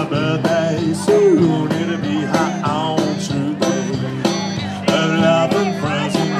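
A live rock band playing an instrumental stretch between vocal lines: electric guitars over bass, with a steady drum beat.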